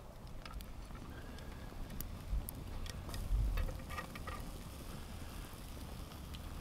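Siberian log fire crackling, with scattered small pops and clicks over a steady low rumble and a brief low bump a little past the middle.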